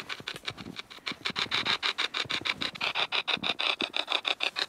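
Shack Hack spirit box, a modified radio sweeping nonstop through the stations, giving a fast, even chopping of static and snatches of radio, about eight a second.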